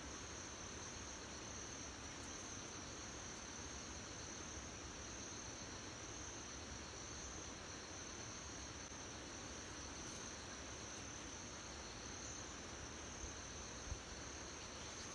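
Faint, steady, high-pitched shrilling of insects, with one soft knock near the end.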